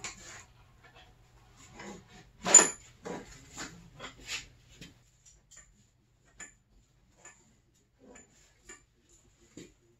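Metal clinks and knocks from parts and tools being handled at the snowmobile's engine. A cluster of knocks comes about two seconds in, the loudest about two and a half seconds in, followed by scattered small ticks.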